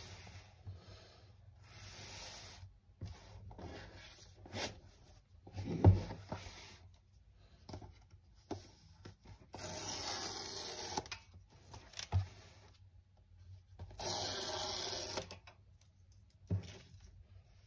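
Hands handling a cardboard tablet box on a desk: soft rubbing and sliding on the cardboard, two longer scraping rubs about ten and fourteen seconds in, and a few knocks of the box, the loudest about six seconds in.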